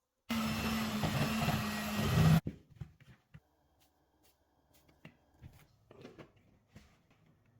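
A small electric kitchen appliance motor runs steadily for about two seconds and cuts off abruptly. Faint scattered clicks and taps follow.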